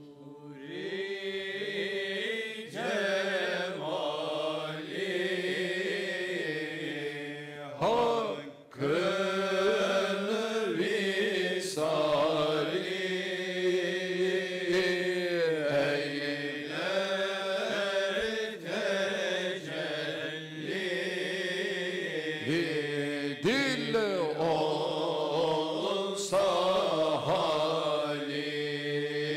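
A men's group chanting a Sufi ilahi in unison, a usul ilahisi in makam Hicaz sung for the devran zikr ceremony. The melody glides between long held notes over a steady low held tone.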